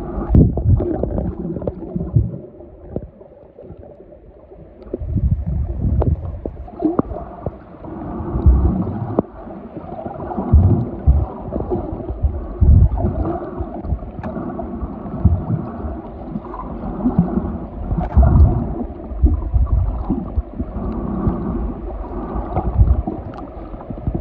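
Muffled underwater sound of water moving around a submerged camera: low sloshing and gurgling surges every second or two.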